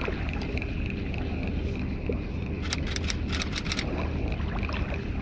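Steady low rumble of wind on the microphone over water noise, with a run of quick, evenly spaced ticks lasting about a second midway.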